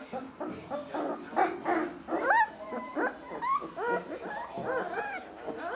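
Nineteen-day-old Belgian Shepherd Malinois puppies whimpering and squeaking: many short, high calls that rise and fall, several a second and overlapping, after some scuffling near the start.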